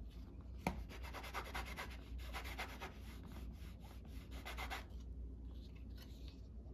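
Quick back-and-forth rubbing strokes on paper, burnishing an ink transfer onto a card. There is a light click just before the rubbing starts, the rubbing stops about five seconds in, and a few softer strokes follow.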